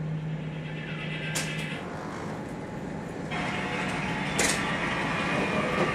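Steady hum and hiss of a ship's interior machinery and ventilation. A low steady hum drops away a couple of seconds in, two sharp clicks sound, and the hiss jumps suddenly louder about halfway through.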